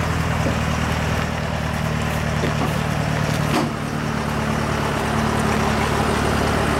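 A truck engine running steadily with a low, even note, and a single sharp knock about three and a half seconds in.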